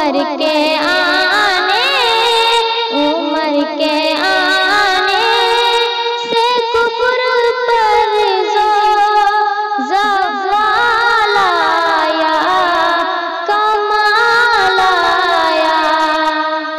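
A woman singing a naat, an Islamic devotional song, in long ornamented melodic lines over steady held tones.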